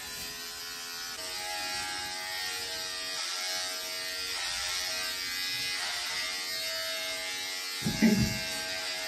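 Corded electric hair clipper running with a steady buzz as it cuts hair. A short voice sound breaks in near the end.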